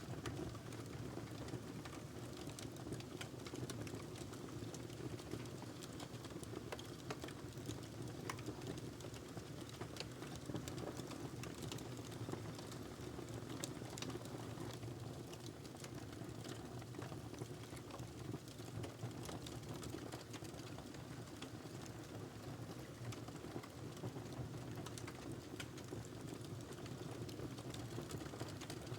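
Wood fire burning in a fireplace: a steady low rush of flames with frequent irregular crackles and pops from the logs.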